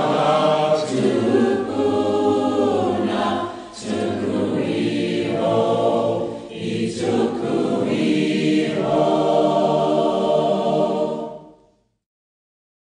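A choir singing long held chords, with two short breaks between phrases, fading out shortly before the end.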